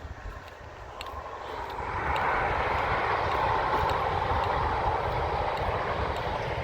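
Rushing noise of a passing vehicle that swells over about two seconds and then holds, over a low rumble of wind on the microphone.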